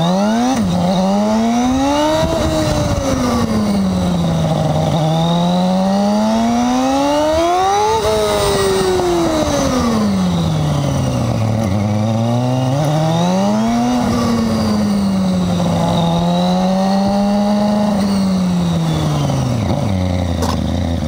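2009 Yamaha R6's inline-four engine heard from the rider's seat, its pitch rising and falling several times as the bike accelerates and slows. The pitch drops low near the end as it slows toward idle.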